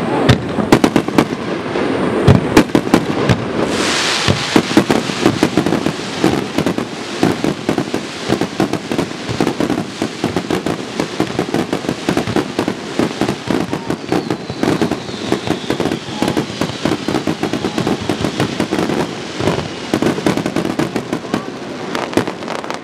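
Aerial fireworks display: a dense, continuous barrage of shell bursts and crackling reports, with a surge of hissing crackle about four seconds in.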